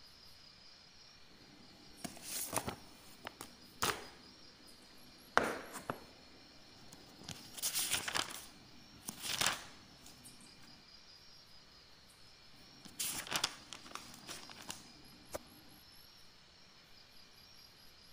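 Paper rustling and crinkling in a handful of short bursts as a sheet is handled, with a sharp tap or two among them. Faint insect chirring runs steadily underneath.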